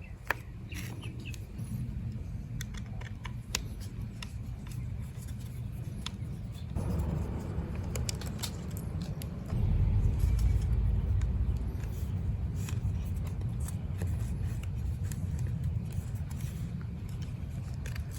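Small clicks and handling noises over a steady low rumble that grows louder partway through.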